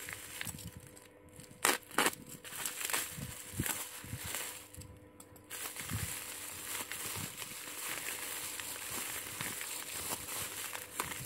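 Plastic packaging crinkling and rustling as a small parcel is unwrapped by hand: scattered sharp crackles, two louder ones about two seconds in, then steadier rustling through the second half.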